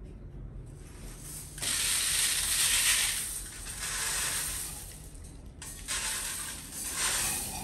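Unhusked rice grains poured from a metal cup, rattling and hissing down through a wire-mesh cage onto a tiled floor, in three long pours, the first starting about one and a half seconds in and the loudest.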